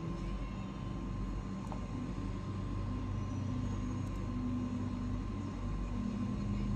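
Steady low background rumble and hum with a faint constant high tone; no distinct handling or rubbing sounds stand out.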